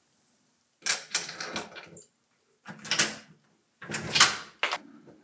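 A door chain lock being slid out of its track and the door unlocked: metal rattles and sharp clicks in three bursts, near the start, about three seconds in and about four seconds in, the last the loudest.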